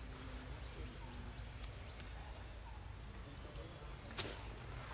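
Steady low outdoor background noise with a few faint, short, high rising chirps, and one sharp click about four seconds in.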